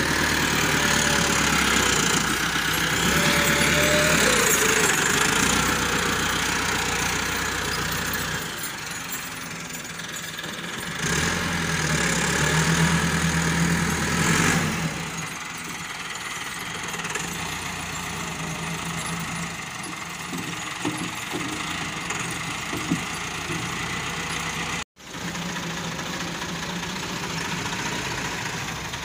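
Diesel tractor engines running and working under load as a front-loader tractor digs mud. The engine note swells and rises in pitch a couple of times, then settles to a steadier running sound. It drops out for a moment near the end.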